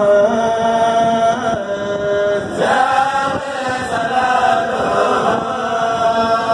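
A kourel, a group of men, chanting Mouride religious poems (khassaides) together through microphones, in long held melodic lines. A new, higher phrase begins about two and a half seconds in.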